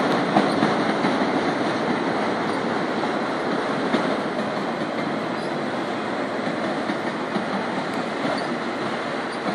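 Freight train of autorack cars rolling past: a steady rumble and rattle of steel wheels on the rails, easing off slightly toward the end.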